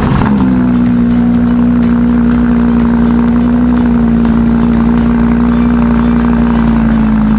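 A car engine revs up and is then held at steady high revs, a loud unchanging exhaust note that sags slightly near the end.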